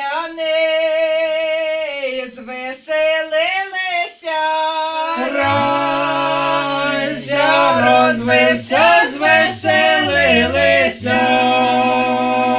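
A Ukrainian Christmas carol (koliadka) sung by a group of women in open-throated folk style, without instruments. About five and a half seconds in, lower men's voices join underneath in harmony.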